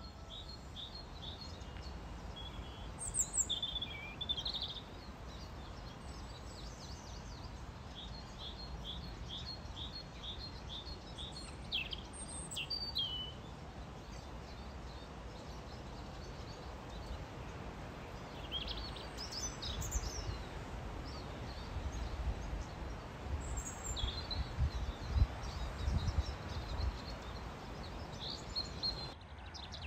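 Outdoor birdsong: several small birds chirping, one repeating a quick run of evenly spaced notes, over a steady low rumble. In the second half, gusts of wind buffet the microphone in low thumps.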